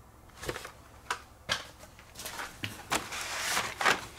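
Carded Hot Wheels die-cast cars in plastic blister packs being handled and set down: about six sharp plastic clacks, with a sliding, rustling scrape building from about two seconds in.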